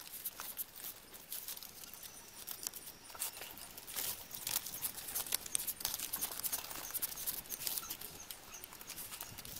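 Arenga pinnata leaf strips rustling and crackling in quick irregular clicks as they are woven by hand into a mat.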